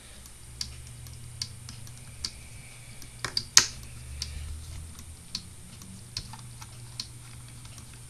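Small irregular clicks and taps of a screwdriver working the screws on the metal top cover of a Samsung hard disk drive, with a few sharper clicks about three and a half seconds in.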